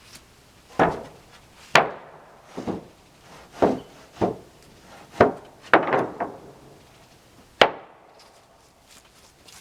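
Sawn wooden boards and sticks knocking and clattering as they are laid onto a lumber stack: about eight sharp, irregular knocks, a few in quick succession near the middle.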